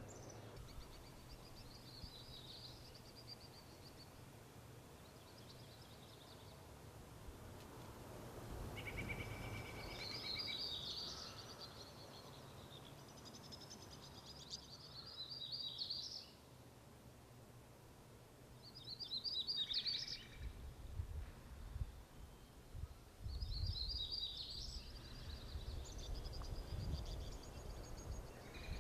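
Wild songbirds singing short, high, trilling phrases every few seconds over a faint low background rumble.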